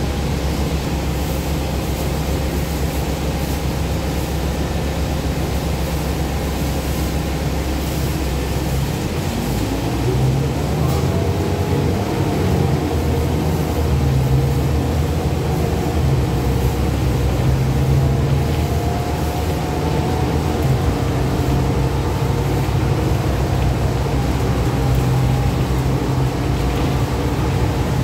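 Interior sound of a 2012 Gillig Advantage Low Floor transit bus: the engine idles at a stop, then about nine seconds in the bus pulls away, the engine rising in pitch as it accelerates. After that it runs steadily at road speed.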